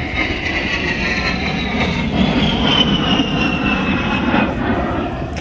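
Military jet flying overhead, its engine whine falling slowly and steadily in pitch as it passes, over a steady rumble.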